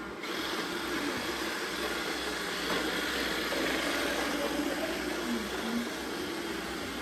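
Robot vacuum cleaners running: a steady whir of suction motors and brushes.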